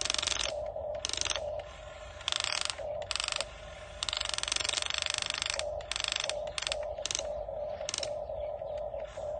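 Ratcheting mechanical clicking in repeated short bursts, the longest about four seconds in, over a steady humming tone that drops out between bursts.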